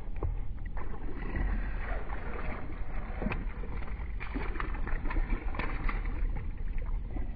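Wind on the microphone makes a steady low rumble, with water splashing at the surface as a small bass is hooked and thrashes among the lily pads, a few sharp splashes standing out partway through.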